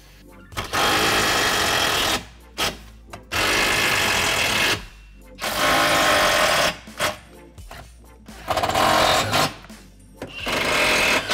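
Makita 18V cordless impact driver hammering as it drives self-threading screws into untapped holes under a steel seat-mount plate: five runs of a second or two each, with short pauses between.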